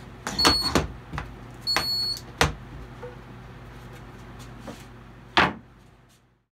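A Little Wizard II handheld metal detector for lumber gives two short, high beeps about a second apart near the start. Wooden pallet boards are being handled, with sharp knocks; the loudest comes about five seconds in.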